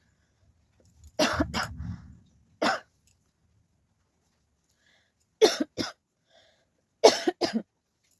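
A person coughing on purpose in short sharp bursts: two quick coughs about a second in, a single cough shortly after, then a pair and a run of three over the last few seconds.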